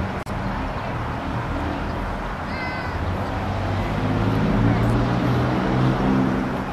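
Steady outdoor background rumble that grows louder, with a low hum, in the second half, and a brief high-pitched call about two and a half seconds in.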